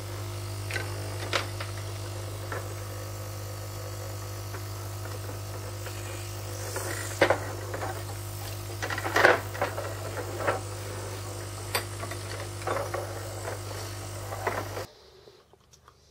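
Aquarium air pump buzzing steadily, with a hiss of air, cutting off suddenly near the end. Clicks and rattles of plastic tubing and fittings being handled come over it.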